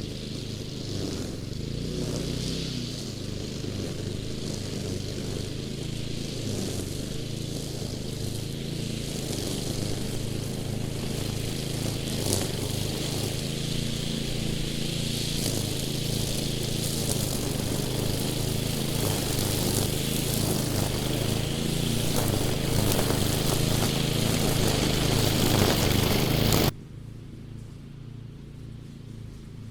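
Small engine of a nylon-cord string mower running steadily under load, the cords whipping and scraping through stubby cut brush; it grows louder, then drops off abruptly near the end.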